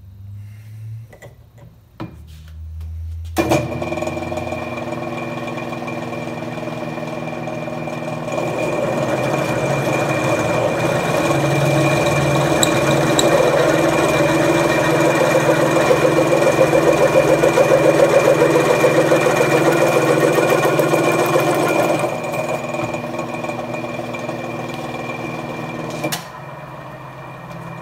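Twist drill in a Millrite mill's spindle cutting through quarter-inch mild steel under a steady plunge with no pecking. The cut bites in sharply a few seconds in, runs as a steady machine drone with a high ringing note, grows louder through the middle, eases off, and cuts out suddenly near the end.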